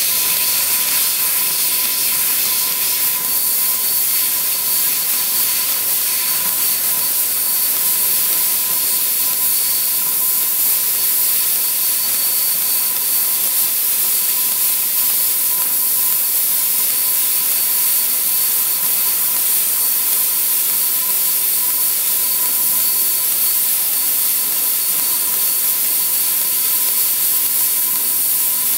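Fiber laser cutter cutting 2 mm stainless steel sheet: a steady, loud hiss from the assist-gas jet at the cutting head, with a steady high tone running through it and a fainter, higher tone joining about three seconds in.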